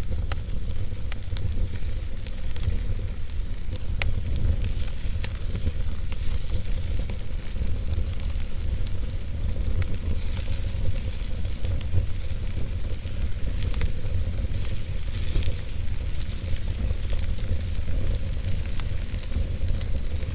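Wood fire crackling in a fireplace: scattered sharp pops and ticks over a steady hiss and a low rumble.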